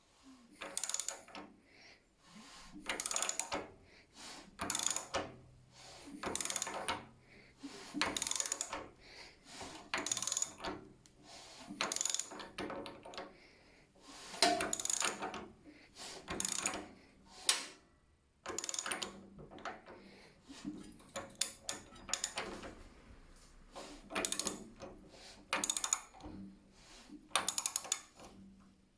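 Bursts of metallic clicking, roughly one a second and somewhat uneven, with quiet between them: the clicking noise in a VW Type 1 air-cooled engine.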